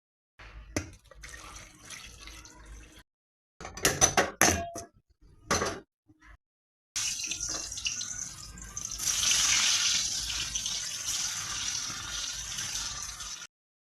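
Water running from a kitchen tap into a sink, with several sharp clinks and knocks of pots or dishes about four seconds in; the longest stretch of steady running water comes in the second half.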